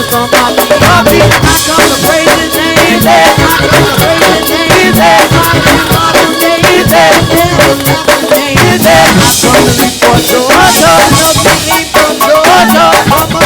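Live gospel praise band playing an up-tempo groove, the drum kit hitting steady, dense strokes under wavering instrument or vocal lines.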